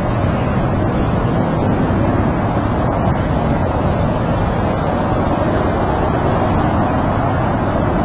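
Snowstorm wind blowing in a steady, low, unbroken rush.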